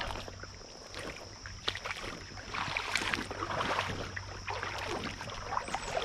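Creek water splashing and sloshing irregularly, with scattered small knocks and splashes.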